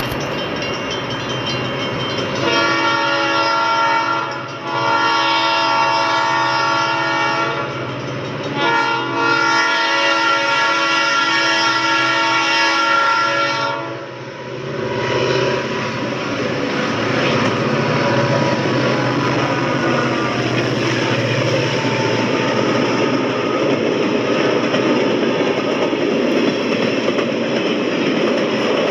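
Train passing by: the locomotive's air horn sounds three long blasts, several notes at once, the last the longest. Then the train rolls past with wheel clatter and a steady rumble.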